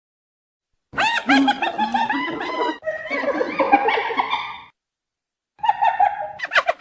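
Spotted hyena giggling: rapid runs of high, rising-and-falling laugh-like calls, a long bout of nearly four seconds, a short pause, then another burst near the end.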